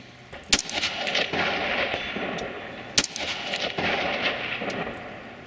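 Two rifle shots about two and a half seconds apart, each followed by a rolling echo that fades out, fired at targets.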